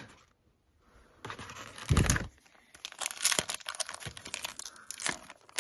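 Foil-lined trading-card booster pack crinkling and tearing as it is opened by hand, with a dull thump about two seconds in.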